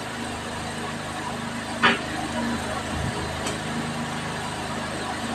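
A sharp crack about two seconds in, from a mangosteen's thick rind being broken open by hand, with a fainter click and a soft low thump a little later. A steady low mechanical hum runs underneath.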